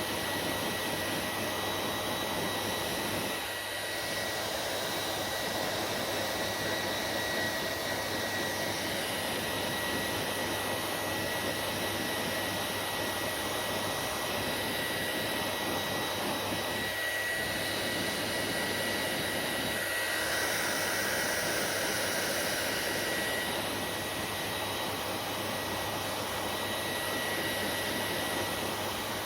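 Hair dryer running steadily: a broad rush of blown air with a thin, high, steady whine from its fan motor. The air sound changes tone slightly a few times, most clearly from about 20 to 23 seconds in.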